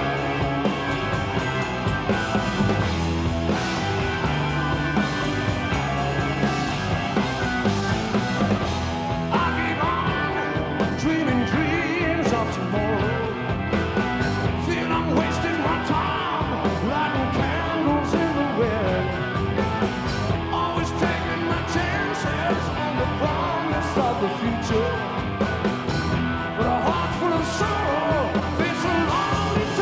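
Hard rock band playing live: electric guitar, bass and drums, with a male lead vocal over them.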